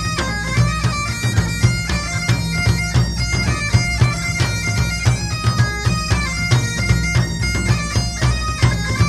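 Background music: a bagpipe tune, quick melody notes over a continuous low drone.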